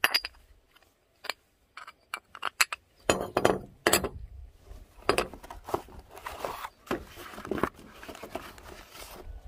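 Metal scooter variator parts clinking and knocking as they are handled, stacked and set down on a steel workbench: a string of sharp separate clinks. From about six seconds in, a cardboard parts box is slid and opened, with a rustling scrape.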